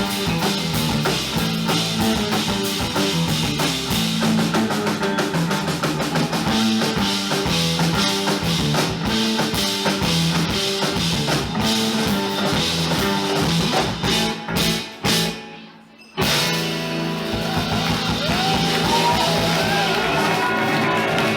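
Live band playing a rock number on drums, electric guitar and bass. A few short stop-time stabs about three quarters of the way through lead to a brief cut to near silence, then the band comes back in on a held chord with bending melodic lines over it.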